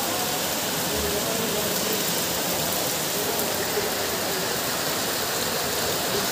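Heavy rain falling on flooded street water: a steady, even hiss.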